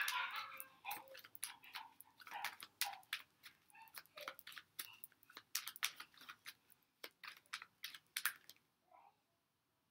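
A deck of tarot cards being shuffled by hand: a quick run of sharp card slaps and flicks, several a second, stopping near the end.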